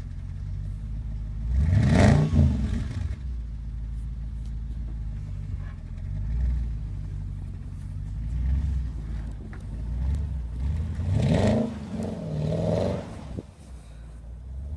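Mercedes-Benz W211 E500's V8 engine running, with two revs where the pitch climbs and the sound swells: one about two seconds in, a longer one about eleven seconds in; it runs steadily between them.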